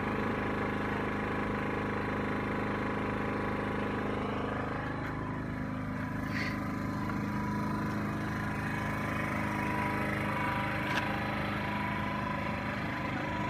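An engine running steadily at one constant speed, with an even hum that does not change pitch. There is a faint click about six and a half seconds in and another about eleven seconds in.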